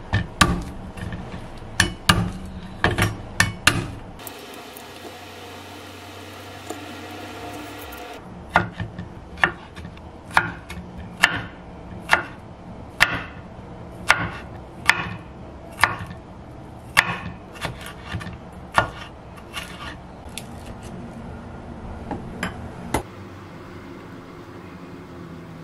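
Chinese cleaver chopping garlic on a wooden cutting board: a cluster of heavy knocks in the first few seconds, then steady blade strokes against the board about once a second for some ten seconds.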